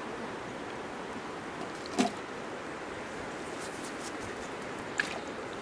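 Steady hiss with two sharp knocks, one about two seconds in and a smaller one near the end, as eggs and seasonings are put into a large iron wok over a wood fire.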